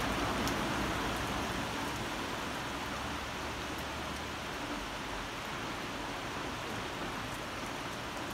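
Heavy rain falling steadily, a dense, even hiss that eases slightly over the first couple of seconds.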